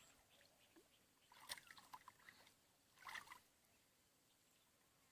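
Near silence, with two faint, brief splashes of water, about a second and a half and about three seconds in.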